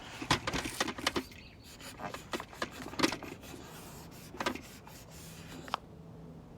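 Irregular clicks and light knocks of hard plastic parts being handled: a quick cluster in the first second, then a few scattered taps later on.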